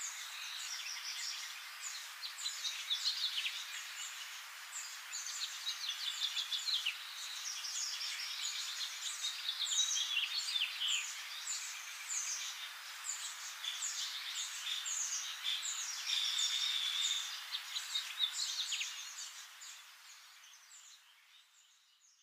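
A dense chorus of birds chirping over a steady hiss, fading out over the last few seconds.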